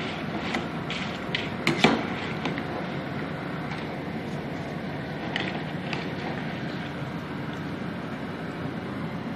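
Pieces of Lebanese flatbread frying in ghee in a pan, a steady sizzle, with a slotted spatula scraping and knocking against the pan as the crisping pieces are turned and lifted out. The loudest knock comes about two seconds in.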